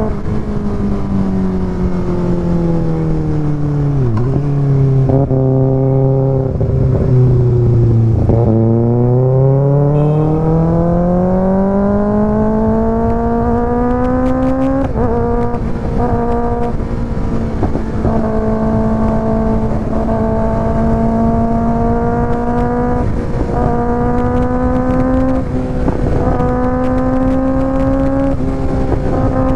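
Kawasaki ZX6R inline-four sport bike running through an IXIL aftermarket exhaust while being ridden. Its pitch falls as it slows over the first few seconds and holds low. From about eight seconds in it climbs steadily under throttle, then holds a higher steady pitch with several brief dips.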